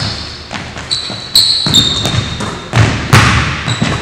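Basketball bouncing on a hardwood gym floor with a handful of irregular thuds, mixed with short high-pitched sneaker squeaks as the players cut and shuffle.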